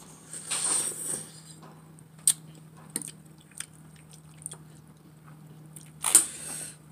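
Close-up eating sounds: chewing and squishing of food, with a few sharp small clicks scattered through and a louder burst of noise near the end. A faint steady hum lies under it all.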